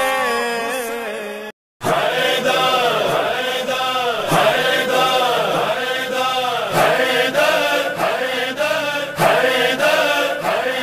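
A sung intro with music cuts off about a second and a half in; after a brief silence, devotional chanting in praise of Imam Ali (manqabat) begins, a rise-and-fall phrase repeated in a steady rhythm about every two-thirds of a second.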